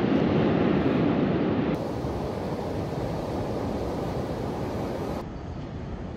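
Ocean waves breaking and washing on the beach, with wind buffeting the microphone. The sound drops abruptly in two steps, about two seconds in and again about five seconds in.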